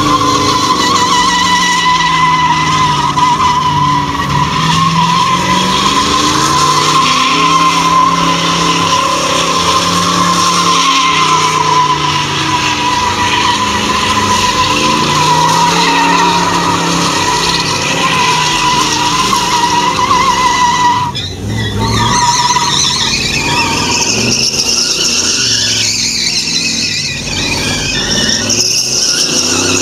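Classic Ford Mustang doing donuts: rear tyres squealing steadily on the tarmac while the engine revs rise and fall. The squeal breaks off briefly about two-thirds of the way through, and the noise turns rougher afterwards.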